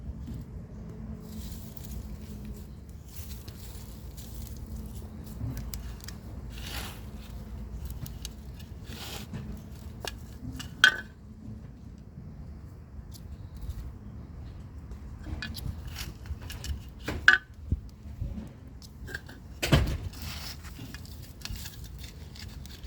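Potatoes being dug out of soil by hand: rustling and scraping of earth with scattered clicks, and a few sharp knocks and clinks, the loudest about halfway through and again about three-quarters through.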